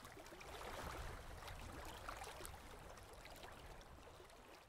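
Near silence: a faint steady hiss of room noise with a few soft ticks.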